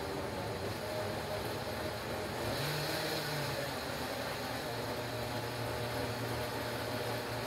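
KitchenAid K400 countertop blender running steadily, its motor and blade churning a jar of almonds, strawberries and water into a smoothie. About three seconds in the hum briefly rises in pitch and the hiss gets brighter before settling back.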